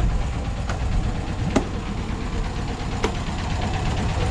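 Fishing boat's engine running steadily with a low drone, with three sharp knocks over it.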